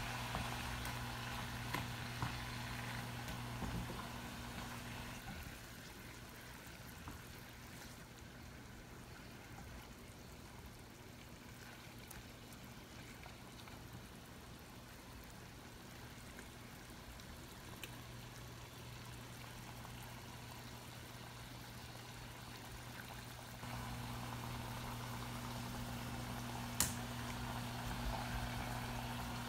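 Butter and rice liquor bubbling gently around pieces of surf clam in a small saucepan as the alcohol cooks off. Under it runs a low steady hum that fades after the first few seconds and returns near the end, and one sharp click comes close to the end.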